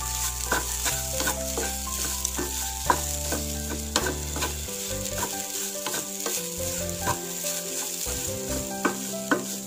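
Wooden spatula stirring and scraping grated raw jackfruit and coconut thoran around a nonstick pan, in quick irregular scrapes and ticks, with a light sizzle from the hot pan underneath.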